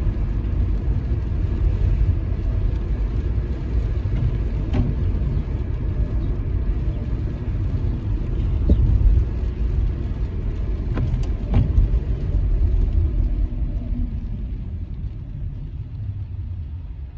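Low, steady rumble of a car driving on a wet town street, heard from inside the cabin: engine and tyre noise. It dies down near the end as the car slows for a red light.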